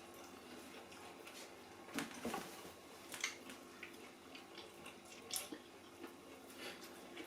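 Faint eating noises: a few short, scattered clicks and soft smacks of chewing and food being handled at the plate.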